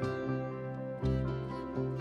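Instrumental background music of sustained plucked-string notes over a bass line, with a new bass note about a second in.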